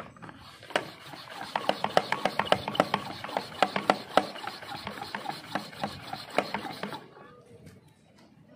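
Hand-pump pressure garden sprayer being pumped to build pressure in its tank: a rapid series of plastic squeaks, clicks and rubbing, several a second, that stops abruptly about seven seconds in.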